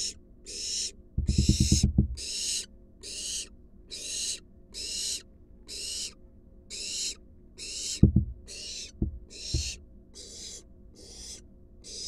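Young barn owl's food-begging calls: harsh, hissing snore-like calls repeated steadily a little under twice a second. About a second in comes a quick rattle of dull knocks, and about two-thirds of the way through a few sharp thumps.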